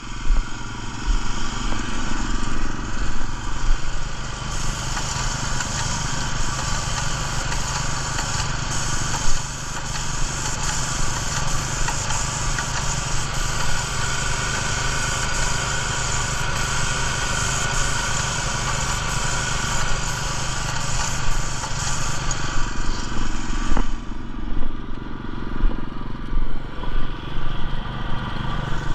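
A paint-striping rig's small gas engine running steadily. From about four seconds in, an airless spray gun hisses as it sprays white traffic paint through an arrow stencil, then cuts off abruptly a few seconds before the end.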